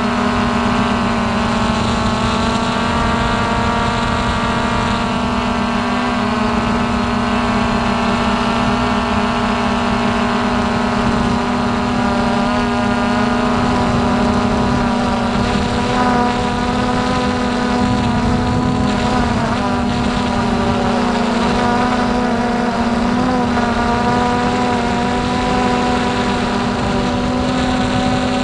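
Hubsan X4 Pro H109S quadcopter's motors and propellers whining steadily as it hovers, heard from its own onboard camera, the pitch wavering a little partway through as the motors adjust to hold position.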